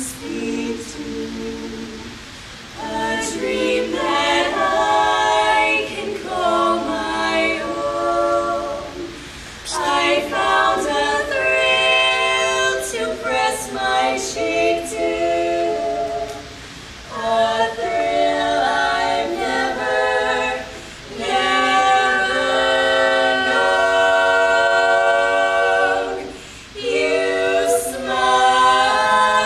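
Four-woman female vocal group singing together a cappella, with no instruments, in phrases a few seconds long separated by short pauses for breath.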